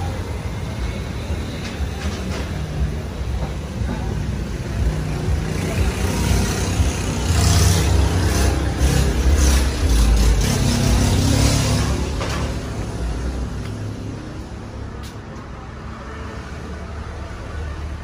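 Street traffic noise: a passing motor vehicle's low rumble swells about six seconds in and fades after twelve seconds.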